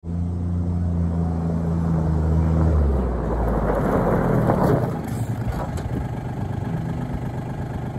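John Deere Gator utility vehicle driving up and passing close by on gravel. Its engine note is steady, then drops about three seconds in, and the tyres crunch over the gravel loudest just before halfway, after which the sound eases off.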